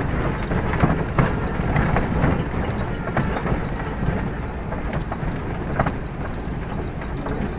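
Ranchera bus driving: a steady engine and road rumble with irregular knocks and rattles from the bus body.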